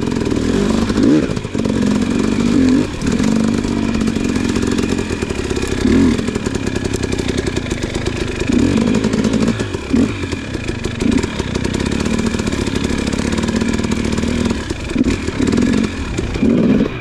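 Dirt-bike engine running close by, its revs rising and falling in repeated throttle blips every second or two.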